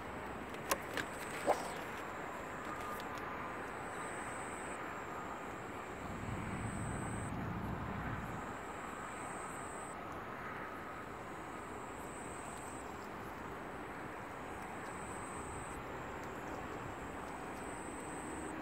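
Steady outdoor night ambience with a distant traffic-like hum, two sharp clicks about a second in, and a faint high-pitched whine that comes and goes. A low rumble swells briefly around six to eight seconds in.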